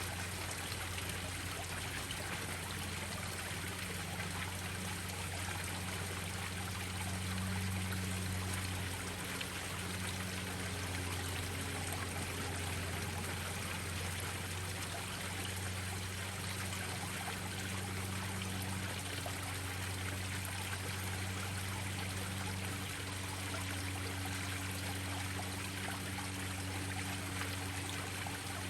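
Koi pond waterfalls running steadily, splashing and trickling, with a low steady hum underneath.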